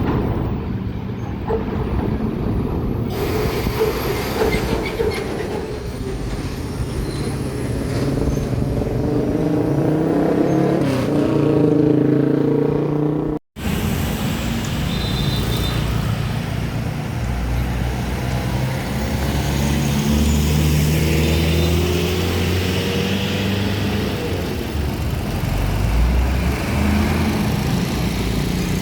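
Heavy diesel trucks with their engines running and pulling through, engine pitch rising and falling under load. The sound breaks off for an instant about halfway through.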